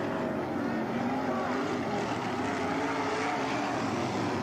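Several winged sprint car engines running hard together in a race. Their overlapping engine notes waver up and down as the cars lap the dirt oval.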